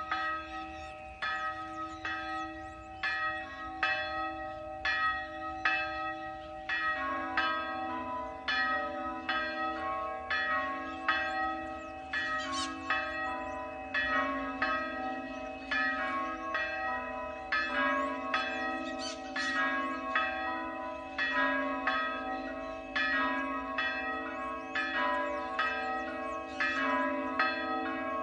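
Church bells ringing, several bells struck in quick succession at about two strokes a second, their tones hanging on and overlapping. A deeper bell joins about seven seconds in.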